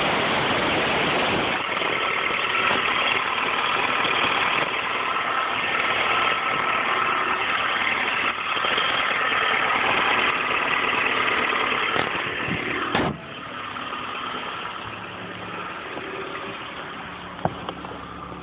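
2003 Honda Accord's 2.4 L four-cylinder engine idling with a steady noise from the accessory belt at the alternator, which the owner takes for a belt problem. A sharp knock comes about two-thirds of the way in, and the noise is quieter after it.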